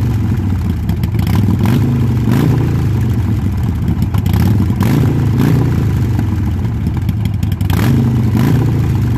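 Harley-Davidson Sportster 48's air-cooled V-twin running steadily, heard close at the exhaust muffler, with its level gently rising and falling. The bike is running after a new fuel pump and fuel filter were fitted.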